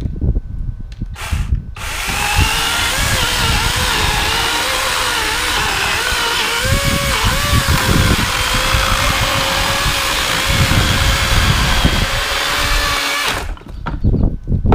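GreenWorks Pro 80V battery chainsaw: a brief blip of the trigger, then the electric motor and chain running for about eleven seconds while cutting through stacked 2x6 lumber, the whine dipping and wavering as the blade is pushed into the wood. It stops suddenly near the end, followed by a few knocks.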